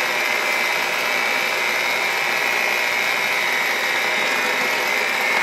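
Cuisinart seven-speed electric hand mixer running steadily on its lowest speed, a high motor whine, its beaters working sifted flour and cocoa into chocolate cake batter.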